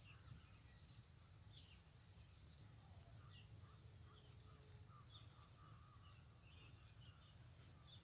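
Faint, scattered chirps and short calls of small birds, many brief notes throughout, over a steady low rumble.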